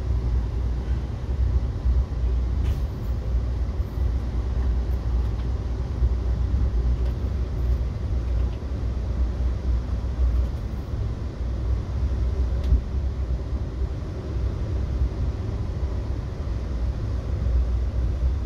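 Steady low rumble of an Amtrak Heartland Flyer passenger train rolling along the track, heard from inside the coach, with a few faint ticks.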